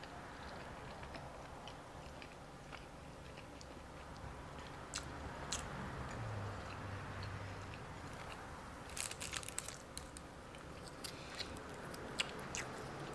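A person chewing food close to the microphone: wet mouth clicks and small crunches, with a dense run of them about nine seconds in. A short low hum around six seconds in.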